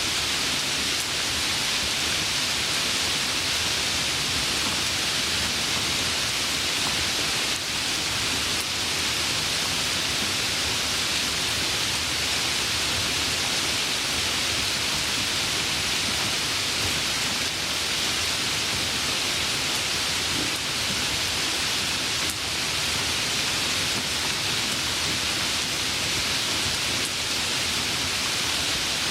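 Steady rain, an even hiss of many drops falling with no change in level.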